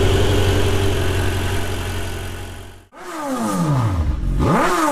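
Car engine idling steadily, fading out about three seconds in; then an engine revved, its pitch falling, climbing sharply and falling again.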